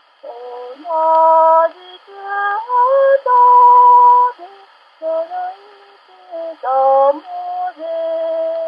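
A woman singing a slow melody in held notes that slide from one pitch to the next, in phrases with short breaths between them. It sounds thin, like an old record, with nothing in the deep bass or the high treble.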